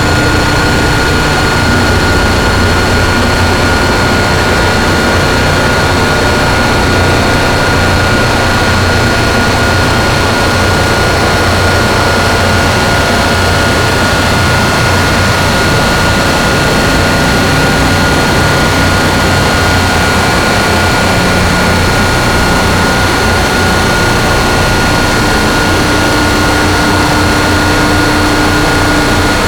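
Harsh noise drone from DIY synthesizers through distortion pedals: a dense, loud, unbroken wall of distorted noise with steady high whistling tones and a low rumble.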